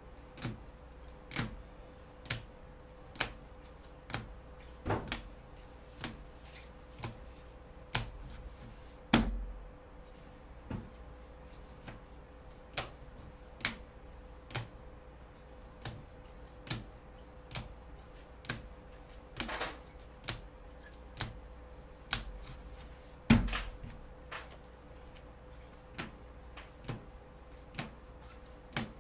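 Rigid plastic toploader card holders clicking against each other as cards are flipped through one at a time, about one click a second, with two heavier knocks, one about nine seconds in and one about twenty-three seconds in. A faint steady hum runs underneath.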